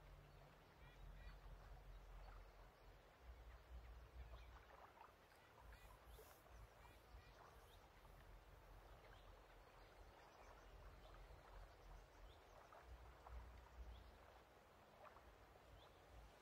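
Faint lake ambience: water lapping over a low rumble, with scattered small ticks.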